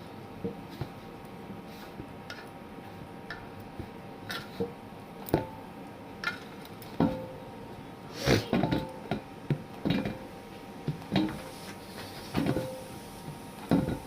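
Metal kitchen utensils and vessels clinking and knocking against each other: irregular knocks and clatters, some ringing briefly, busier in the second half.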